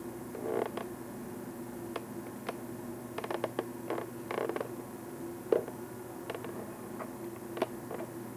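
Handheld camcorder handling noise: irregular clicks, soft knocks and a creak, the sharpest about five and a half seconds in, over a steady low hum.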